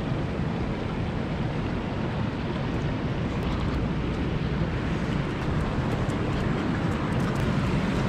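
Steady rush of river water running over rocks, with a low rumble underneath.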